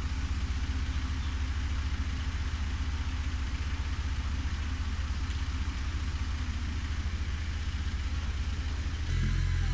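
Caterpillar telehandler's diesel engine running steadily as the boom lifts a cabin module, a low rumble that grows a little louder near the end.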